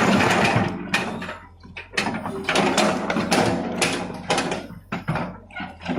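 Heavy machinery clanking and rattling in irregular knocks over a steady low engine hum.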